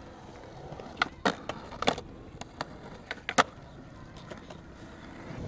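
Skateboard wheels rolling on concrete, with a run of sharp clacks from the board and wheels hitting the ground. The loudest clack comes about three and a half seconds in.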